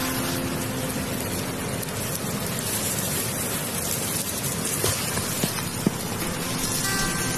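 Wood campfire under a grill plate crackling and hissing steadily, with a few sharp pops about five to six seconds in.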